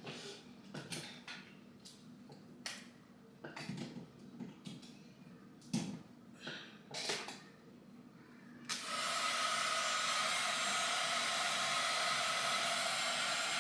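A few scattered clicks and knocks of the blow dryer being handled, then about two-thirds of the way through a handheld blow dryer switches on and runs steadily on its high setting, its fan blowing.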